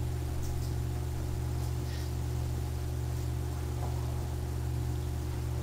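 Steady low hum with a faint hiss: background room tone with no other sound.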